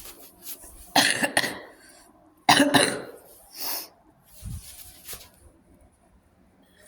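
A person coughing: two loud coughs about a second and a half apart, followed by a shorter hiss and a low thump.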